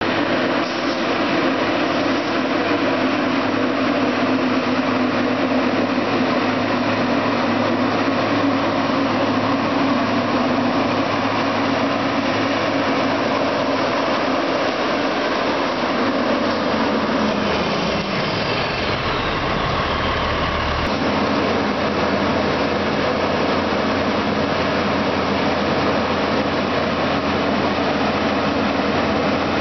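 Western Star water truck's diesel engine running steadily, with a steady hiss from the water it sprays from its front spray heads and turret cannon. Near the middle a falling whine is heard, and the low engine sound changes abruptly about two-thirds of the way through.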